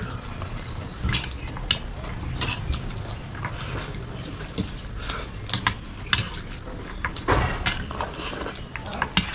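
Two people eating chowmein fast: irregular slurping and chewing of noodles, with forks scraping and clinking against ceramic plates.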